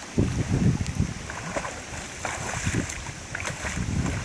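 A dog swimming out and diving under, the water sloshing and splashing around it in uneven surges.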